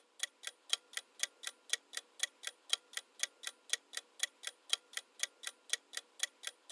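Clock-ticking sound effect counting down a quiz timer: even, sharp ticks at about four a second.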